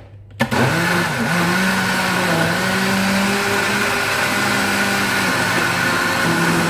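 Moulinex countertop blender switched on about half a second in and running steadily, chopping chunks of fruit and vegetables in water. Its motor tone wavers briefly just after the start, then holds steady.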